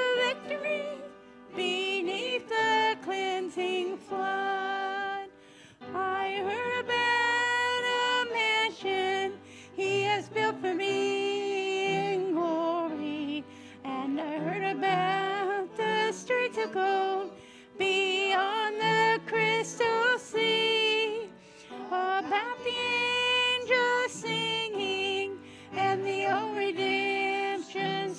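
A small mixed group of men and women singing a hymn in phrases, over long held low accompaniment notes.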